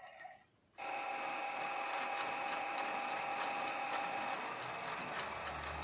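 Toy washing machine's small electric motor starting up about a second in and running with a steady whir, with a high whine that stops partway through.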